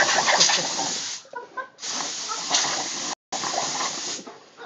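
Compressed air hissing from an air compressor line in three spurts, each cut off abruptly: the first ends about a second in, then two shorter ones follow close together.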